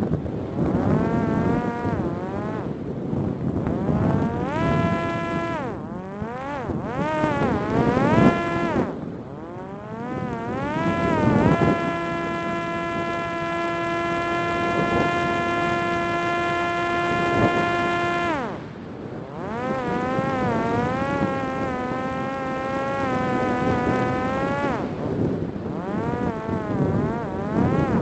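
Parrot Disco fixed-wing drone's electric pusher propeller buzzing, its pitch rising and falling repeatedly with the throttle, then holding steady for about six seconds in the middle before dropping away.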